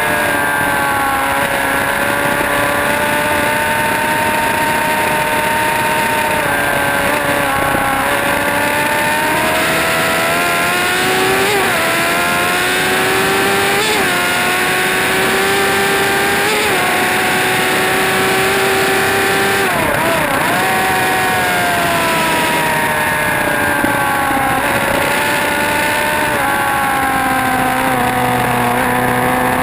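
Motorcycle engine running hard on a racetrack, its pitch climbing and falling as it accelerates and slows for corners, with several quick dips in pitch from gear changes, over a steady rush of noise.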